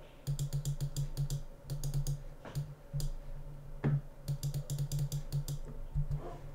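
Computer keyboard keys clicking in quick runs with short pauses, with a couple of louder knocks in the middle.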